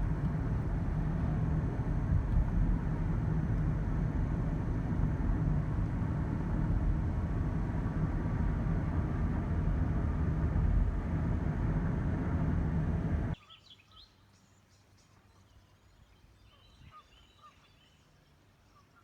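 Steady road and engine noise inside a moving car, heavy in the low end. It cuts off abruptly about 13 seconds in, leaving a quiet scene with a few faint bird calls.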